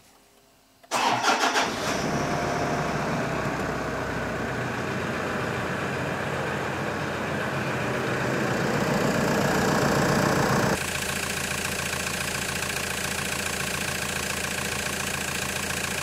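Toyota Prado 150 engine cranking briefly and starting about a second in, then idling steadily; the running sound steps down abruptly about 11 seconds in.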